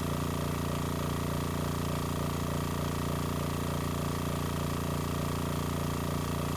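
Spraygunner Super Cool 2D airbrush compressor running continuously with a steady motor hum and a faint air hiss, holding about 55 psi at the regulator under a continuous air draw.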